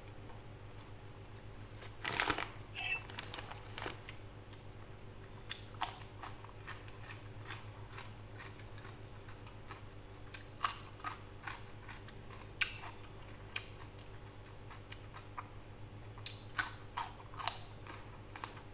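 A person eating by hand, close to the microphone: scattered short chewing and mouth clicks with soft taps, bunched about two seconds in and again near the end, over a steady low hum.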